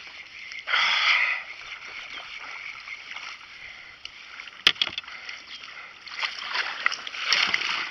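Kayak paddle strokes swishing and splashing water, with a louder splash about a second in and another swell near the end. Two sharp knocks, about five seconds in and near the end.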